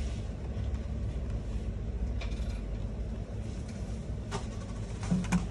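A few light clicks and taps from handling a cardboard smartwatch gift box, over a steady low rumble of background noise.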